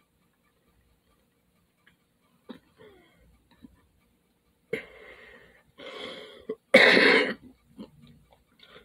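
A man clearing his throat and coughing, with the loudest cough a little before the end.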